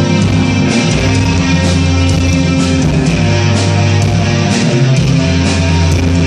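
Rock band playing live: electric guitar, bass and drums in a steady instrumental passage, with sustained bass notes under regular cymbal strikes.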